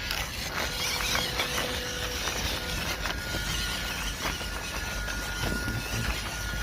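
Small electric motor and plastic gearbox of an MN99 RC Land Rover D90 crawler whining steadily as it climbs a steep slope, with small clicks and scrapes from the tyres on rough ground; the whine jumps to a higher pitch about two and a half seconds in.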